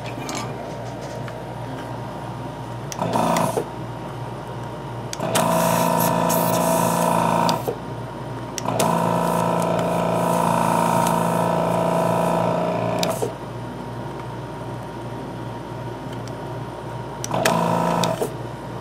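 Hakko 470 desoldering station's vacuum pump buzzing in four bursts as the 802 desoldering gun's trigger is pulled to suck solder from a circuit-board pin: a brief one, a two-second one, a longer one of about four seconds, then a short one near the end. The pump is running with its new valve plates fitted and pulling good suction.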